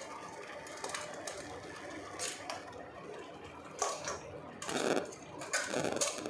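A pot of crab broth simmering with a steady fast bubbling. Metal tongs clatter against the pot and slosh the crab pieces in the broth as they are lifted out, with the loudest splashes and clatters about four to six seconds in.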